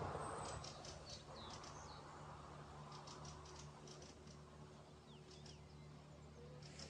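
Faint, steady drone of a distant small boat's engine across open water, with birds chirping and ticking.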